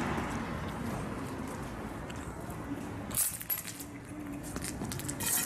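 Low background hiss, then light clinking and rattling from about three seconds in, with more clinks near the end.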